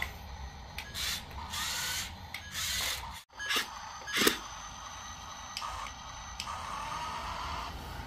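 Toy RC dump truck's small electric motors and plastic gears whirring, with several bursts of scraping noise and a sharp click about four seconds in. Over the last couple of seconds a steadier whir as the motor tips the loaded bed.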